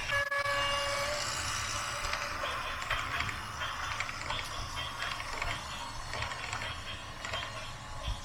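Mechanical rattling and clicking with a low rumble underneath. It opens with a steady, horn-like tone lasting about a second.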